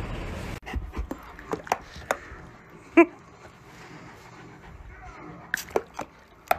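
A black Labrador panting, with one short, high yelp about three seconds in, and several sharp taps and knocks around it.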